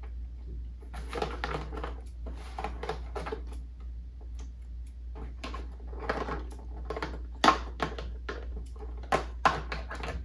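Plastic toy packaging crinkling and rustling as it is handled, with irregular clicks and taps and a few sharper ones in the second half.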